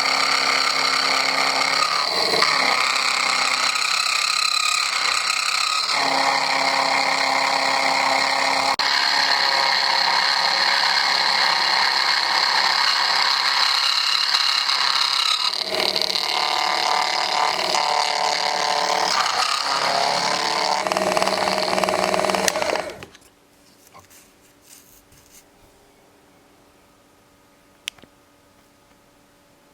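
Mini metal milling machine running, its pitch shifting several times, then stopping abruptly about three-quarters of the way through. After that it is quiet apart from one sharp click near the end.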